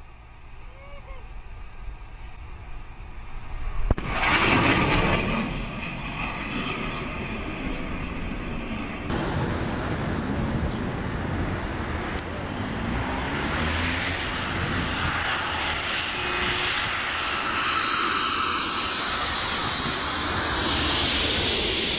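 Jet aircraft making low passes: a sudden loud surge of jet noise about four seconds in as a jet flashes past, then a large four-engine jet flying low overhead, its engine noise building and staying loud.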